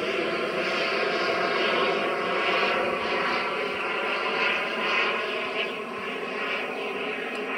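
The twin ATJ-170ti model jet turbines of a giant-scale RC MiG-25 in flight, making a steady rushing jet sound that wavers slightly and dips a little about three-quarters of the way through.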